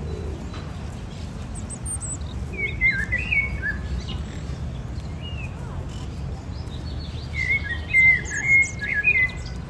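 Birds chirping in two bursts of short, bending calls: a brief one about three seconds in and a louder, busier one near the end. A steady low rumble runs underneath.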